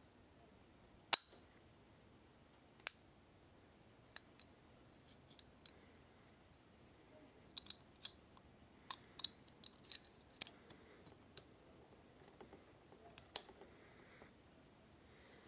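Clicks of a Mauser C96 Broomhandle pistol's parts being handled and fitted during reassembly: a loud click about a second in, another about three seconds in, and a quick run of clicks in the middle as the magazine's carrier spring and floor plate are fitted.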